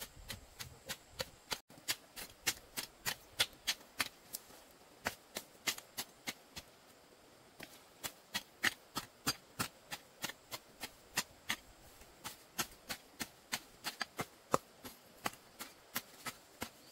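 Rapid, even chopping strokes with a blade, about three a second, with a short pause about seven seconds in.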